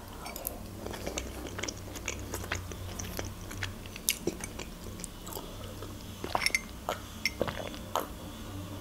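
A person chewing a mouthful of smoked-chicken and egg salad close to the microphone: soft, wet chewing with many small, irregular clicks.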